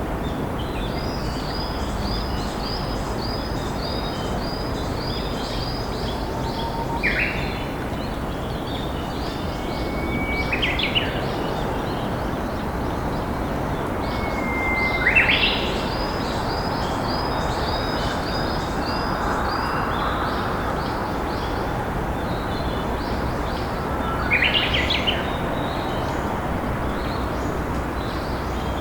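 Japanese bush warbler (uguisu) singing its hoh-hokekyo song four times, each a held whistle breaking into a quick rising flourish. A second bird repeats short high chirps in runs between the songs, over the steady rush of a flowing river.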